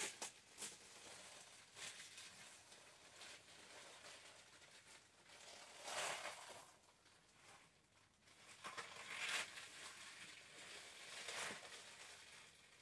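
Shiny PVC dress rustling and crinkling in several short bursts as it is handled and shifted, the loudest about six and nine seconds in.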